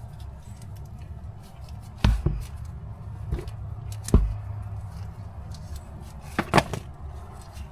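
Sharp knocks and clunks of parts and tools being handled while a fuel hose is fitted under a car: two about two seconds in, a loud one around four seconds, and a close pair near the end, over a steady low hum.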